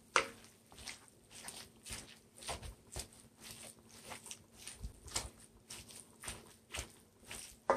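Metal spatula chopping into ground turkey and melted cheese in a pan, short knocks against the pan about two to three times a second.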